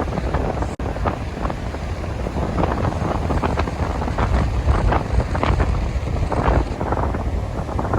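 Strong wind buffeting the microphone with a heavy rumble, over sea surf washing and splashing. The sound cuts out briefly just under a second in.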